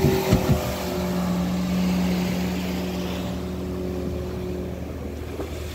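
Outboard motor of a speedboat running at speed as it passes close by, a steady engine note that swells about two seconds in and then fades as the boat pulls away, over wind and rushing water.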